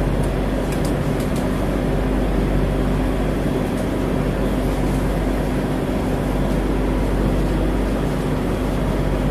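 Ferry's engines running, a steady low drone with a constant hum in it.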